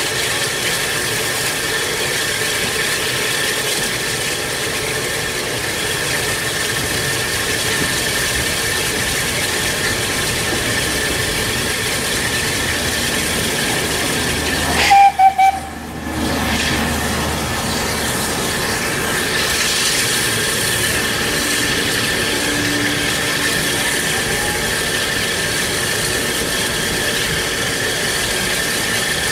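Steam trains at a station: a steady hiss of steam with a low running rumble as a steam-hauled train passes close beneath. About halfway there is a short, very loud blast with a brief whistle tone, loud enough to overload the recording.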